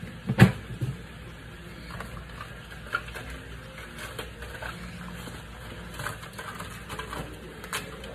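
Kitchen handling noises: a loud knock about half a second in, then scattered light clicks and knocks as seasoning containers are picked up and handled, over a low steady background hum.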